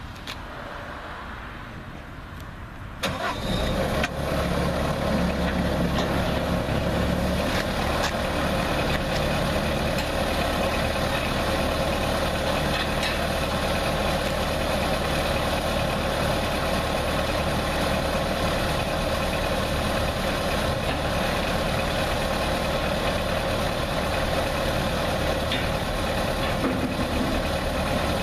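Skid steer engine starting about three seconds in and then running steadily, driving the hydraulic broom attachment, with an even hiss over the engine throughout the rest.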